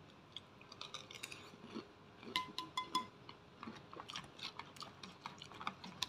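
Close-up chewing of batagor and siomay, the fried and steamed fish dumplings, with many small clicks of a plastic spoon against the plastic takeaway box. Three of the clicks ring briefly about two and a half seconds in.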